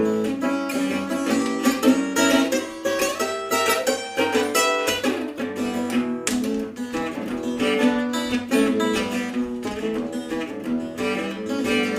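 Guitar playing a picked riff in 7/8 time, with hammer-on and pull-off notes.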